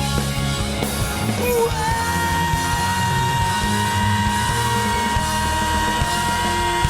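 Pop-rock song with full band backing. About two seconds in, the singer holds one long high note, with a slight waver, almost to the end.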